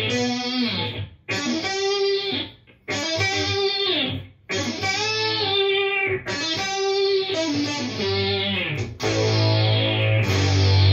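Electric guitar played through a Digitech Dirty Robot synth pedal, giving a robotic synth tone. A phrase of notes comes about every second and a half, each with a bend in pitch and a falling sweep, then one long held note about nine seconds in.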